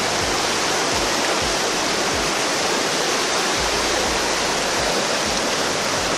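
Fast-flowing mountain river rushing over rocks and rapids: a steady, loud rush of water.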